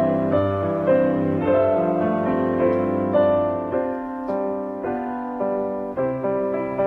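Background piano music, notes played in a steady flowing line.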